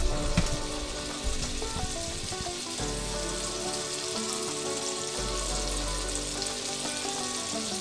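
Butter sizzling softly as it melts in a non-stick frying pan over a gas flame, a steady hiss, with a few light knocks in the first moment. Background music plays underneath.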